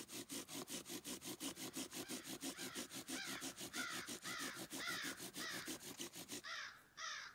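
A bird's harsh, rapid chattering call, an even run of about six notes a second that changes near the end to slower, fuller notes.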